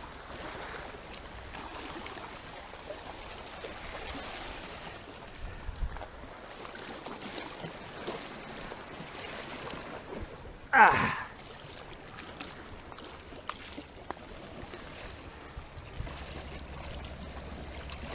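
Sea water washing and lapping over shoreline rocks, a steady low wash. About eleven seconds in, a single short grunt that falls in pitch stands out as the loudest sound.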